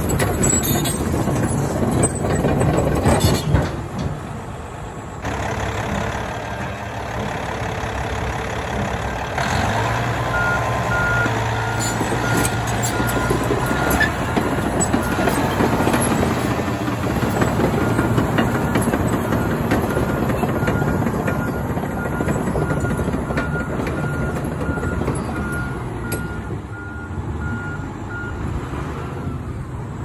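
Caterpillar D8T bulldozer running, its diesel engine and steel tracks clattering as it moves over gravel. From about a third of the way in until near the end, a backup alarm beeps steadily, the signal that the machine is reversing.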